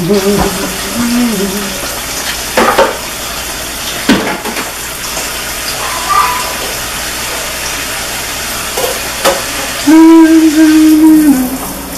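Ground meat and diced vegetables sizzling steadily in a pan on the stove, with a few sharp knocks of utensils or containers. Near the end a voice holds one loud note for about a second and a half.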